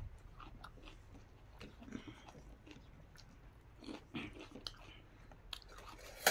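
Quiet chewing and soft mouth clicks of a person eating rice by hand, with small scattered taps; a single sharp clink comes at the very end.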